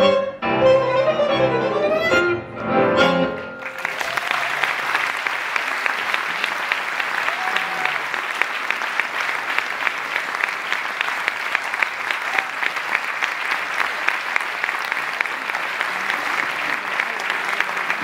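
A live tango ensemble of piano, double bass, bandoneón and guitar plays its last few separate chords. The music stops, and from about four seconds in the audience applauds steadily.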